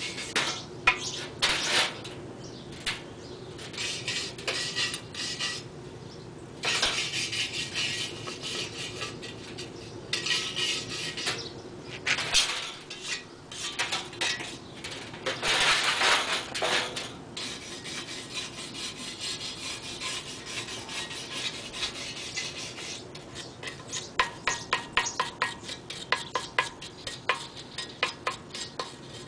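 Hand work on metal: irregular scraping and rubbing with metallic clinks, then a fast run of light sharp taps near the end.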